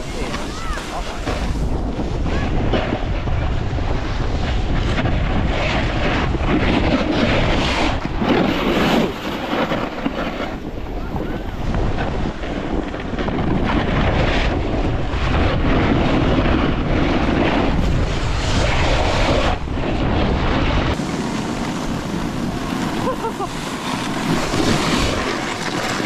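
Wind buffeting the microphone while skiing downhill, mixed with the steady hiss of skis sliding and carving on snow.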